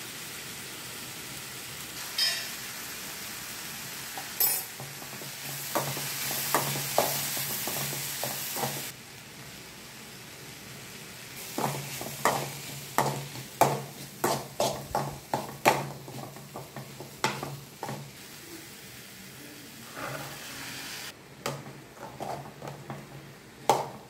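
Vegetables sizzling in a metal pan on a gas stove while a spoon stirs and scrapes them against the pan. The sizzle swells from about four to nine seconds in, and from about twelve seconds a run of quick scraping knocks comes about twice a second.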